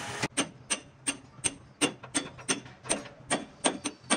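A run of sharp clicks or taps, about a dozen at roughly three a second and slightly uneven, from a tool or mechanism at work.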